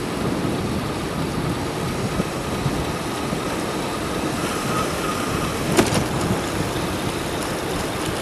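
Steady road and engine noise of a car driving, heard from inside the moving vehicle. One sharp click comes about six seconds in.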